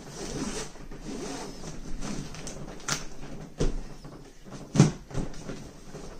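Nylon straps being pulled tight through their buckles around a rolled, vacuum-compressed mattress, with its plastic storage bag crinkling. Irregular rustling broken by a few short rasps and knocks, the loudest about three-quarters of the way through.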